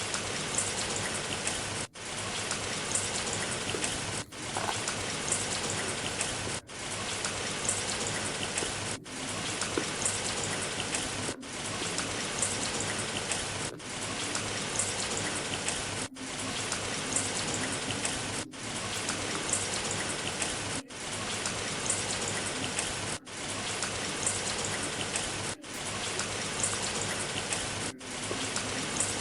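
Steady rain falling, with small drop ticks on top. About every two and a half seconds the sound dips briefly and swells back in.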